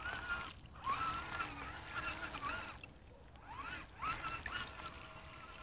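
Radio-controlled scale crawler truck's motor and gears whining in bursts, the pitch rising about a second in and again near four seconds in, then holding, while its tyres churn through deep muddy water.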